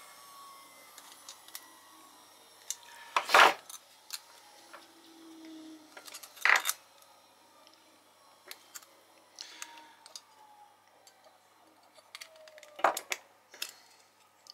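Pliers working on a small pressed-metal and plastic fridge thermostat: scattered light metal clicks and clinks as tabs are bent and parts prised loose, with three louder sharp snaps about three and a half, six and a half and thirteen seconds in.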